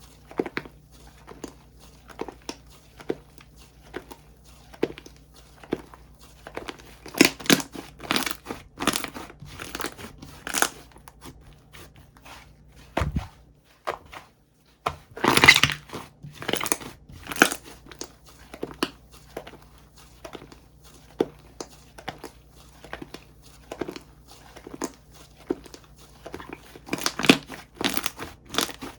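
Slime being squeezed, stretched and poked by hand, giving irregular crackling pops and crunches. There is a short break about halfway through.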